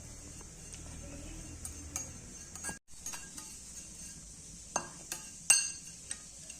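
Metal kitchen utensils clinking and knocking against cooking vessels, in scattered light taps with a few louder clinks near the end.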